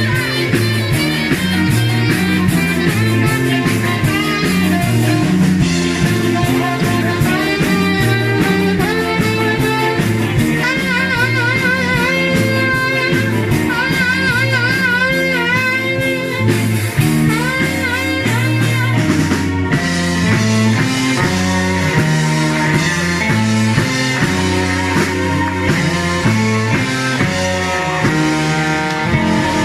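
Ska band music with guitar, bass and drum kit. A lead melody with heavy vibrato comes in about a third of the way through and runs for several seconds.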